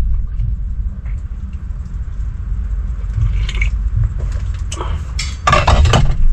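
Steady low rumble of the semi-truck's engine, with a few short clatters over it, the loudest a burst about five and a half seconds in.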